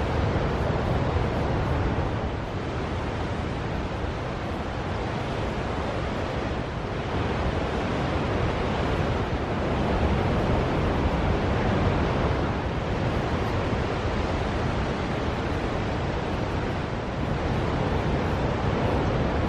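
Steady wash of ocean surf, swelling and easing gently as waves break, with wind rumbling on the microphone.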